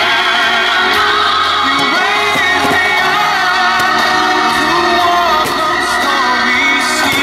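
Music with a singing voice, played loud and steady as the soundtrack to a fireworks show.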